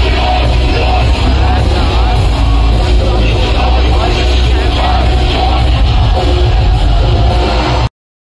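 Loud heavy rock entrance music with a heavy bass and yelled vocals, played over an arena's speakers and recorded on a phone; it cuts off suddenly near the end.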